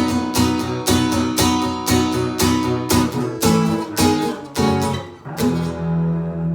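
Acoustic guitar strummed in a steady rhythm, about two strokes a second, ending on a final chord left ringing about five and a half seconds in.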